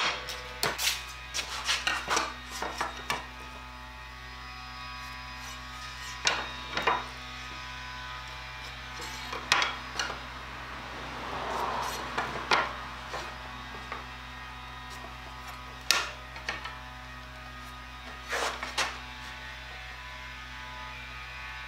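Sporadic knocks and clicks of pine boards and clamps being set down and shifted on a workbench, with a short scraping sound about halfway through, over a steady electrical hum.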